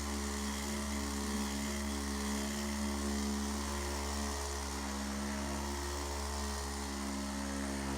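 Handheld electric massager running with a steady, even-pitched motor buzz.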